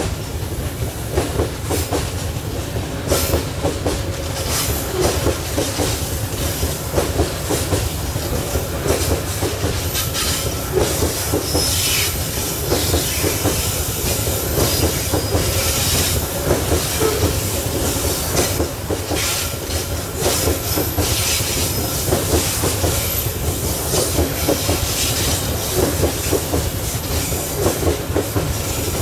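Loaded coal hopper wagons of a long freight train rolling past: a steady heavy rumble with a continuous run of wheel clacks over the rail joints. The wheels give a thin squeal as they go through the curve.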